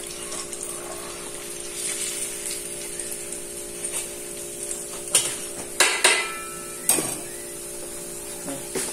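Battered chicken deep-frying in a wok of hot oil with a faint steady sizzle, while a metal ladle scrapes and clinks against the steel wok, knocking sharply four or five times between about five and seven seconds in. A steady low hum runs underneath.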